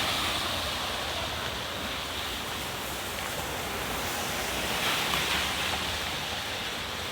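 Floodwater rushing steadily, a swollen river running high and fast and pouring through pipes, swelling a little about five seconds in.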